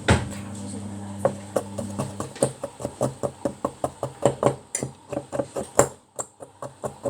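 A fork mashing Oreo cookies in a mug, tapping and scraping against the mug in quick repeated knocks, about three to four a second.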